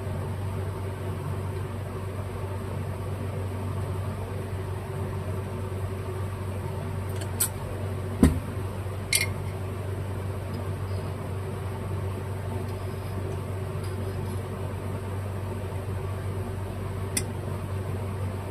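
Steady low mechanical hum with a few sharp clicks and one louder knock about eight seconds in, from a small tool and carburetor parts being handled while the low-speed mixture screw is set.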